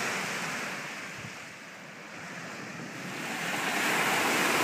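Small lake surf breaking and washing onto a sandy, pebbly shore: a steady wash of water that eases a little midway, then swells to its loudest near the end.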